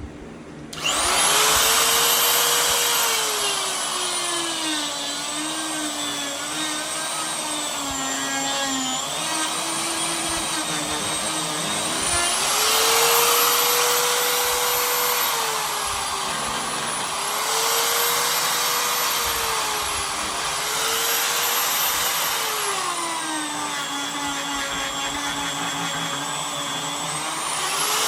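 Handheld electric rotary carving tool whining as it cuts into wood. Its pitch sags repeatedly under load and picks back up between cuts.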